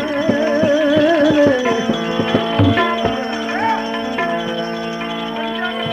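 Gujarati devotional folk song: a singer's held, wavering note ends about a second and a half in, and hand-drum strokes continue under steady sustained instrumental notes.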